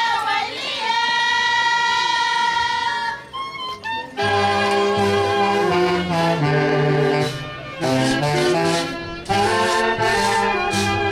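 A long high note held for about two seconds, then about four seconds in a brass band with saxophones strikes up a dance tune, pausing briefly between phrases.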